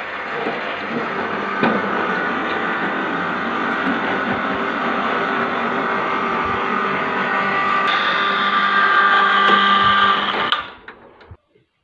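Electric hoist motor of a mini crane running steadily while it lifts a wheelbarrow on chains and lowers it again. The whine gets a little louder near the end, then cuts off suddenly.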